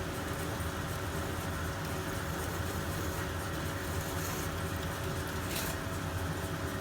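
Grazioli Fortuna metal lathe running steadily, its motor and gearing humming evenly while a tool works the spinning steel stock.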